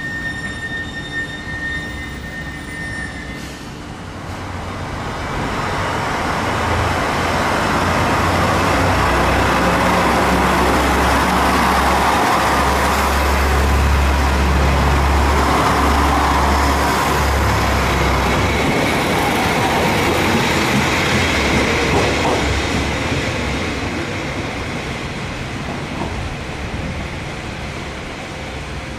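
Diesel railcar pulling away from a station platform: its engine runs hard under power, loudest for about ten seconds in the middle and then easing off as it moves away. A steady high whine from another train is heard in the first few seconds.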